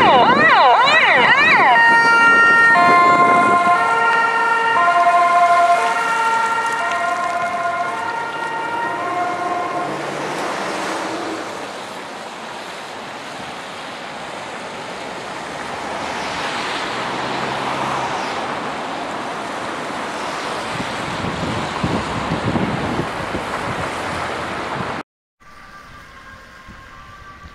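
Ambulance siren: a fast yelp that switches about two seconds in to a two-tone wail alternating between two pitches, fading over the next several seconds into road traffic noise. After a sudden cut near the end, a two-tone siren sounds faintly.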